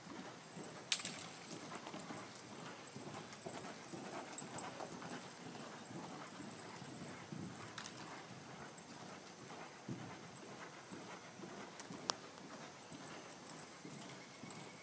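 Faint, muffled hoofbeats of a stallion cantering on soft arena dirt, an uneven run of soft thuds. Two sharp clicks stand out, about a second in and near the end.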